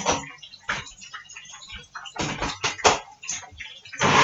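Clatter of a countertop blender jar and lid being handled and set on the base, then the electric blender switches on near the end and runs loud, its motor whine rising as it speeds up to blend green peppers and onions.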